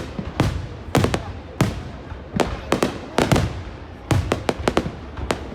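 Aerial fireworks bursting: a rapid, irregular series of a dozen or more sharp booms, some in quick clusters, each with a rumbling echo trailing off.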